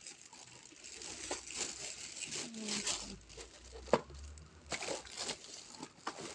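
Packaging crinkling and rustling as it is handled, with scattered small clicks and one sharper click about four seconds in.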